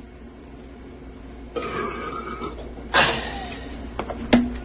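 A girl burping from gulped Sprite: a rough burp lasting about a second, then a louder, shorter one. A couple of sharp clicks follow near the end.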